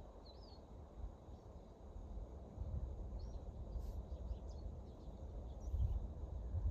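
Birds chirping now and then, a few short rising and falling calls, over a low, uneven rumble.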